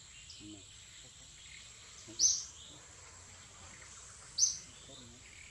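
Two short, loud, high-pitched chirps about two seconds apart, over a faint, steady high-pitched hum.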